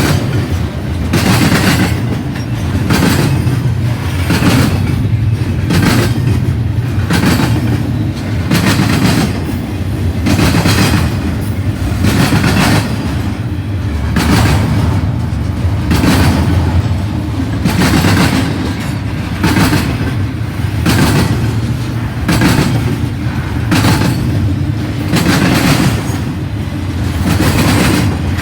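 Intermodal freight train rolling past close by: a steady low rumble with a rhythmic clatter of wheels over rail joints.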